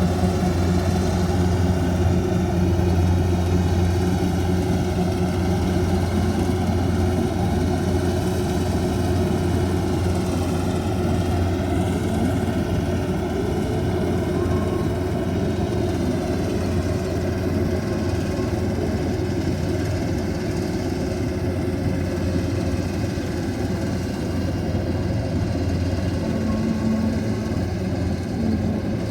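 Rice combine harvester's engine running steadily, with a slight dip in pitch about a third of the way through.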